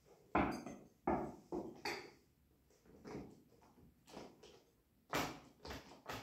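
Rummaging in an open bassoon case: a series of clunks and light clatters of hard objects against the case, with several sharp knocks in the first two seconds and again near the end.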